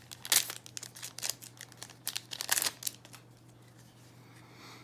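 Foil trading-card booster pack wrapper crinkling and tearing as it is handled and opened, in two clusters of crackles in the first three seconds, then quieter.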